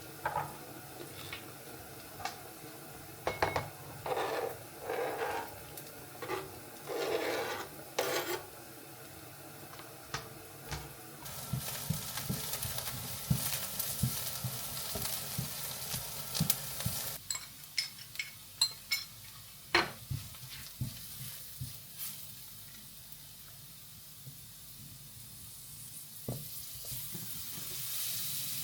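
Stovetop cooking: a utensil stirring and scraping in a pot with scattered knocks, then food sizzling in a pan for several seconds, followed by sharp clinks of metal utensils against cookware.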